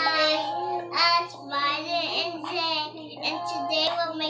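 A child singing a tune, holding notes and sliding between them.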